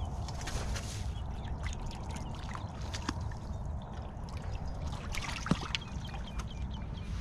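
Water splashing, trickling and dripping as a whitebait scoop net is swept through the river and lifted out, over a steady low rumble. A single sharp knock sounds about five and a half seconds in.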